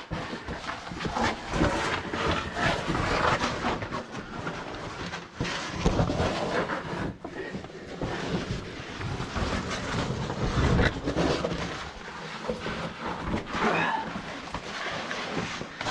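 Cavers climbing down a short rock drop: boots, hands and packed gear scuffing, scraping and knocking against the rock in an irregular run of sounds.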